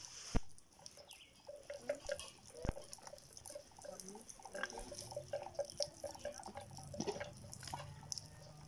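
A dromedary camel browsing on a thorn tree, with a few sharp snaps of twigs. A bird calls in a quick run of short repeated notes in the background, and a low hum comes in during the second half.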